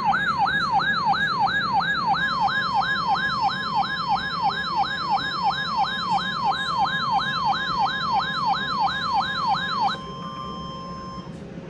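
Weather-radio alert siren, a rapid electronic warble sweeping up and down about three times a second, warning of a severe thunderstorm. About two seconds in, a steady single-pitch tone joins it: the NOAA Weather Radio 1050 Hz warning alarm tone. The warble stops near ten seconds and the steady tone carries on, quieter, for about another second.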